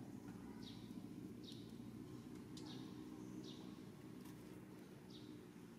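Faint, short, high bird chirps repeating about once a second, each dropping slightly in pitch, over a low steady background hum.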